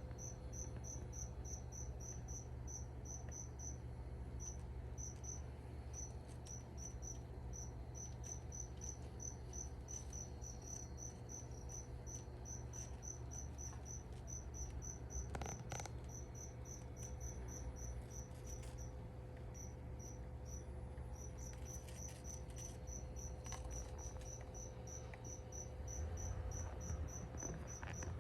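A cricket chirping steadily, short high chirps at about four a second with a few brief pauses, over a low steady hum. A brief click comes about halfway through.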